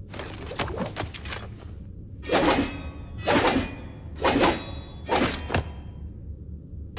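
Katana blades clashing: four sharp metal-on-metal strikes about a second apart, each with a short ringing after it, following a few lighter clicks near the start. A steady low hum runs underneath.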